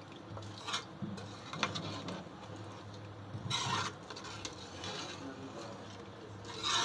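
Metal spoon stirring a thin meat-and-taro curry in a metal pot, with short scrapes and clinks against the pot several times; the loudest strokes come about halfway through and at the end. A steady low hum runs underneath.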